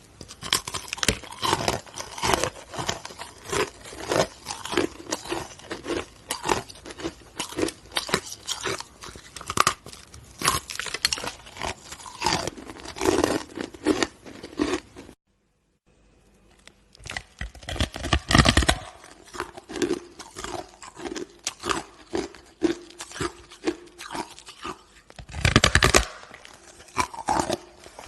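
A person biting and chewing hard chunks of green ice: a fast, continuous run of sharp crunches. A short silence falls a little past halfway, then the crunching resumes with a few louder bites.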